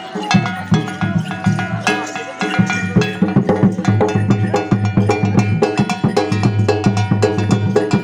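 Folk dance music for a Danda Nacha performance: drums beating a fast, steady rhythm with a clanging metal bell struck along with them, over a held melody line.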